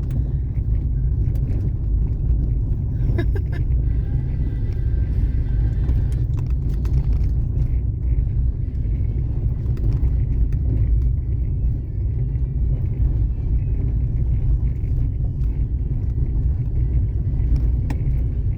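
Steady low rumble of a car driving, engine and tyre noise heard from inside the closed cabin.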